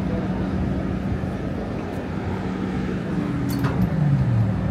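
A tow truck's engine running steadily with a constant low hum. Near the end a lower tone slides briefly down in pitch.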